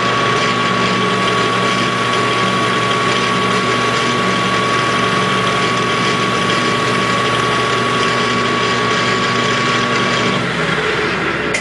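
Metal lathe running with its four-jaw chuck spinning, a steady high gear whine over the motor hum, while taking a light three-thousandths cut. About ten seconds in the whine stops and the lathe spins down, with a sharp click just before the end.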